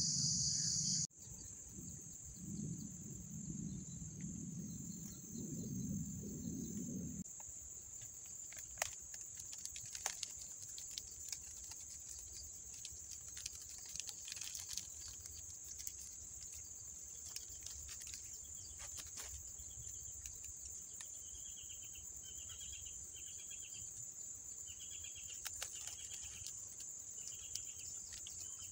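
Steady high-pitched drone of insects in riverside vegetation, with scattered light clicks and crackles of dry sticks being handled. A low rumble runs between about two and seven seconds in, and near the end a bird gives a string of short repeated calls.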